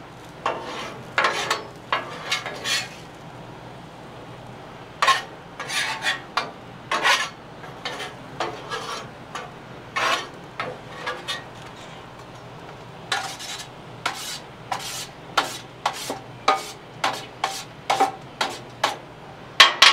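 Metal spatulas scraping across the steel top of a Blackstone flat-top griddle in many quick, irregular strokes as leftover corn is gathered up. The strokes pause about three to five seconds in and again around twelve seconds.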